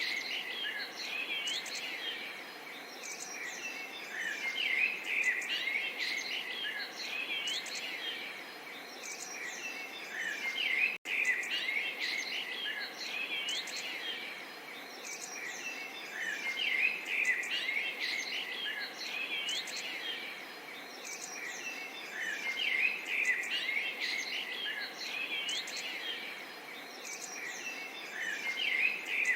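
Many small songbirds chirping and twittering over a soft, steady murmur of trickling water, with a momentary break in the sound about eleven seconds in.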